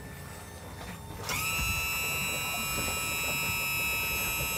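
Electric boat-hoist motor starting up about a second in, its steady high-pitched whine over a low rumble as the lift lowers the boat toward the water.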